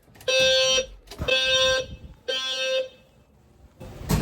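Building fire alarm sounding its evacuation signal: three half-second beeps, one second apart, in the temporal-three pattern. A single knock and a rustle follow near the end.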